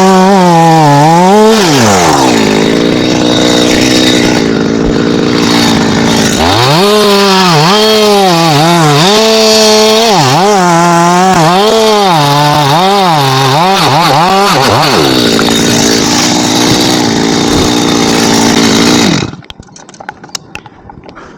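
Two-stroke chainsaw running loud, revved up and down again and again with steadier stretches between the bursts. It cuts off abruptly near the end, leaving only faint clicks.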